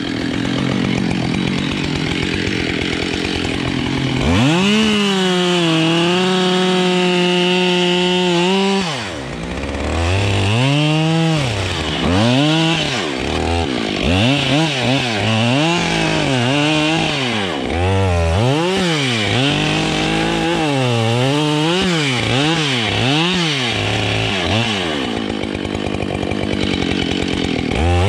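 Husqvarna 572 XPG two-stroke chainsaw idling, then opened up to full throttle and held there for about five seconds, then revved up and down roughly once a second for a long stretch before dropping back to idle and revving again at the end. The saw is new and not yet properly run in, which makes it sound a little different.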